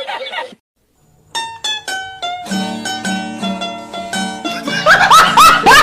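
A short comic sound-effect tune on a plucked string instrument, starting after a brief silence with a run of single plucked notes, then settling into a bouncy repeated pattern; swooping rising notes join near the end. Before the gap, the tail of a laughing voice clip cuts off.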